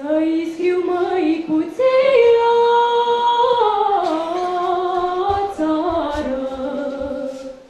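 A girl's solo voice singing a Romanian folk song into a microphone. Long held notes step gradually down in pitch and stop shortly before the end, closing the song.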